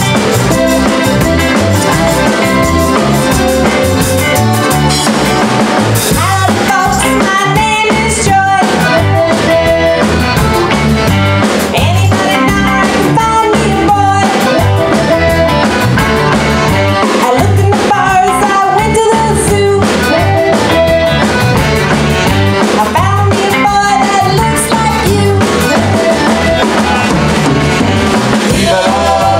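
A live band plays a song with accordion, saxophone, electric guitar, bass and drum kit, with a tambourine and a singing voice over the top.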